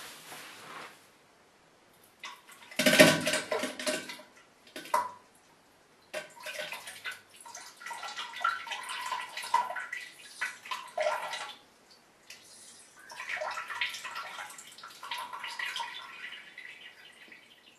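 Diarrhea sound effect: a series of wet, sputtering fart sounds with splashing and gurgling, in several bursts. The loudest burst comes about three seconds in, and longer sputtering runs follow.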